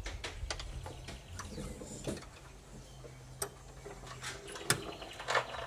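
Socket wrench with a deep socket and extension working a 10 mm nut: scattered metallic clicks and ticks of the ratchet and tools, at an uneven pace.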